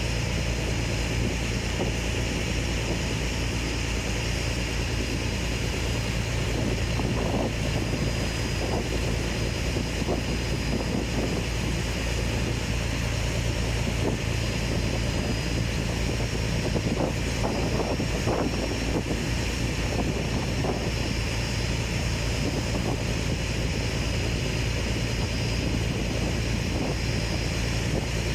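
Motorboat engine running steadily close by, with water rushing along the hull.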